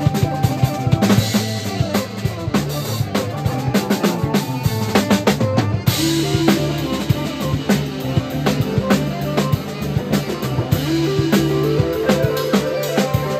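A live band plays instrumental psychedelic jazz, led by a busy drum kit with bass drum, snare and rimshots over held bass and melody notes. A cymbal crash comes about six seconds in.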